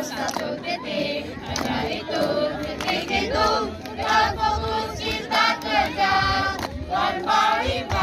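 A mixed group of teenage boys and girls singing together as a choir, the voices running on without a break.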